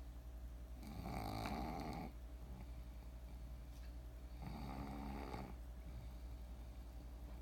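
Snoring: two drawn-out snores, each about a second long and roughly three and a half seconds apart, over a steady low hum.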